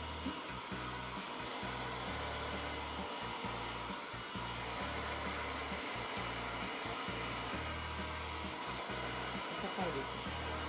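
Handheld electric hair dryer running steadily, blowing on a kitten's fur to dry it after a shampoo.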